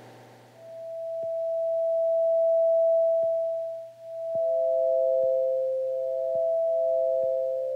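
Soundtrack music of soft, pure electronic tones with no overtones. One note swells up slowly and fades, then two close notes, one slightly lower, sound together and take turns, with faint ticks about once a second.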